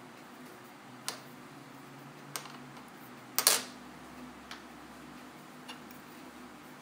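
Light, scattered clicks and taps from handling tiny phone parts and tools on a work surface. There are about six in all, and the loudest is a quick double click about three and a half seconds in.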